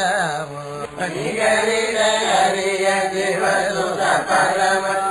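A voice singing a Tamil devotional hymn in long, wavering held notes.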